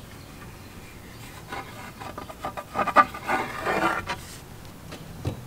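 Wooden canoe paddles knocking and scraping against a wooden deck railing as they are leaned up on it. A scatter of sharp wooden knocks and rubbing starts about a second and a half in, with the loudest knock near the middle and one more knock near the end.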